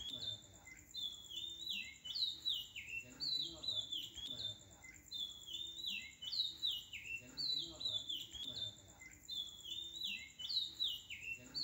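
Bird-like chirping: groups of short, high, falling chirps repeating in a regular loop, over a faint steady high tone.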